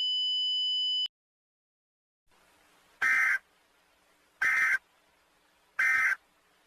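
A steady electronic alert tone cuts off about a second in. After a pause come three short, evenly spaced warbling data bursts about 1.4 seconds apart: Emergency Alert System (SAME) end-of-message tones.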